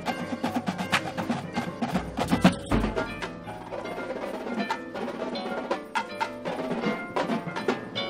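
Drum corps percussion section playing: a tenor drum line (quads) beating fast patterns together with the front ensemble's mallet keyboards. A deep drum hit comes a little under three seconds in.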